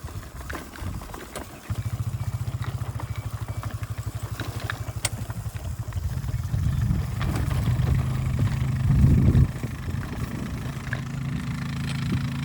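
A small engine comes in sharply about two seconds in and runs with an even pulsing beat, growing louder from about six seconds in.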